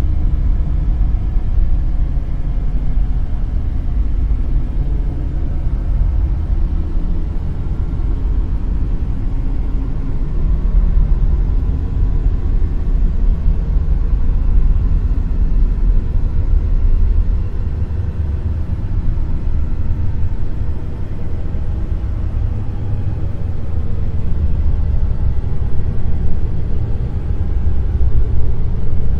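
Dark noise: a steady, deep rumbling hiss with most of its weight in the bass, swelling slowly up and down in level.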